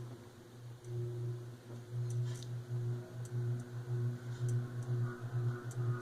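Heritage ceiling fan motor starting up with a low electrical buzz. The buzz pulses in and out, and the pulses come faster and faster as the fan gathers speed.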